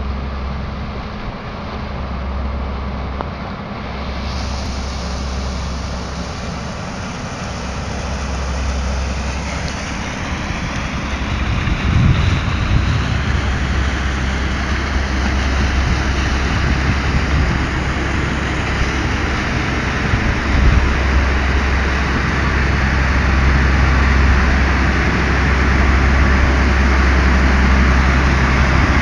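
Wind buffeting the microphone over a steady rumble of engine and water noise that grows louder as a Moskva-type river boat passes close.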